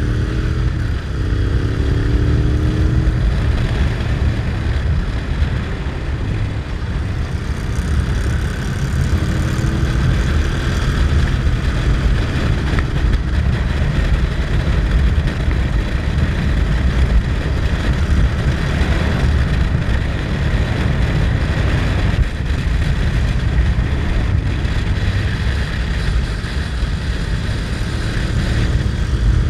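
Motorcycle on the move, heard from on the bike: a heavy wind rumble on the microphone over the engine. The engine's pitch rises as it accelerates near the start and again about ten seconds in.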